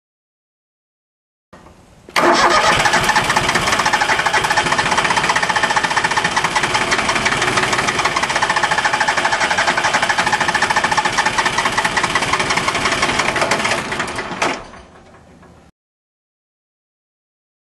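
Starter motor cranking the three-cylinder diesel of a Yanmar YM1401D tractor for about twelve seconds without it starting, still hard to start from air left in the injector lines after a fuel filter change. It begins suddenly about two seconds in and winds down near the end.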